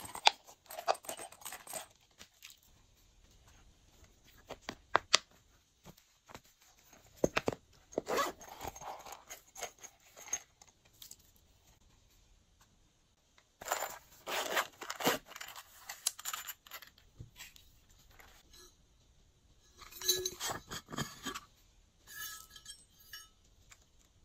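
Bursts of light crinkling, clicking and pattering, several seconds apart: small plastic confetti and polymer-clay slices handled and sprinkled by hand onto slime in a glass dish.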